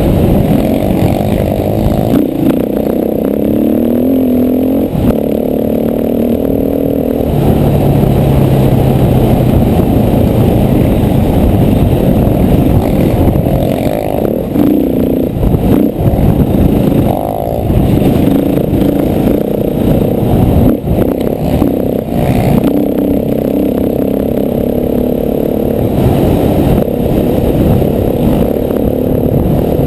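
KTM 450 four-stroke single-cylinder dirt bike engine under way on a trail, its pitch rising and falling again and again as it revs and shifts, with knocks and rattles from the bike over rough ground.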